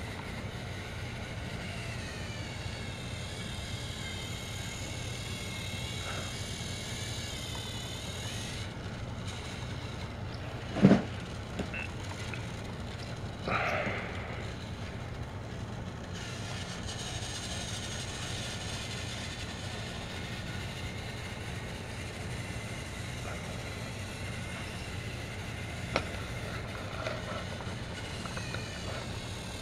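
Motor of a battery-powered toy train engine whirring as it runs along plastic track, its whine wavering up and down in pitch and thinning out for several seconds in the middle. A few sharp clacks, the loudest about eleven seconds in.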